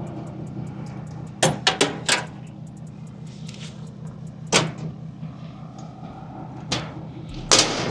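Sharp knocks and clatters: four in quick succession about a second and a half in, a loud single one near the middle, and two more near the end. Under them runs a steady low engine hum.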